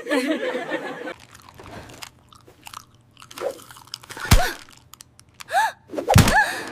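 Crunching, crinkling sounds of paper being handled. There are two soft knocks, one in the middle and one near the end, and a few short rising-and-falling vocal sounds near the end.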